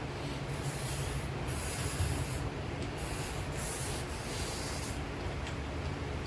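A shoe repair sanding machine runs steadily while the edge of a crepe-soling lift build-up is pressed against the abrasive in short rasping passes that come and go, trimming it flush.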